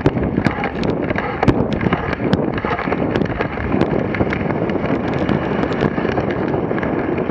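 Dog sled running fast over packed snow: a steady rushing and scraping from the runners, full of irregular sharp clicks and crackles, with wind noise on the microphone.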